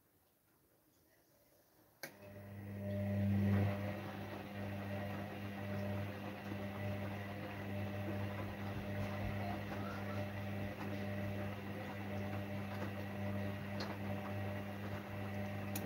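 Gorenje WaveActive front-loading washing machine starting its cycle: a click about two seconds in, then a steady low humming drone from the machine.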